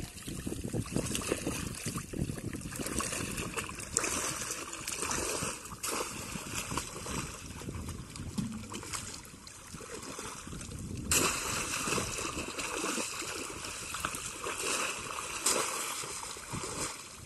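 Shallow water splashing and sloshing irregularly as people wade and work bamboo fish traps, with water trickling off a lifted trap. There is a louder burst of splashing about eleven seconds in.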